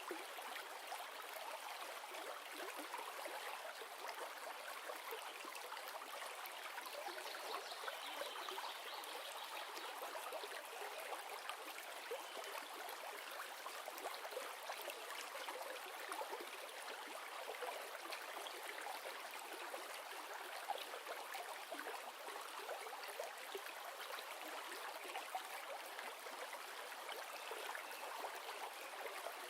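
River or stream water flowing steadily, a continuous rushing and trickling with no low rumble.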